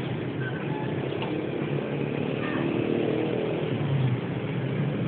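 Steady low rumbling drone with a hum underneath, holding level throughout; the unexplained sky sound as recorded.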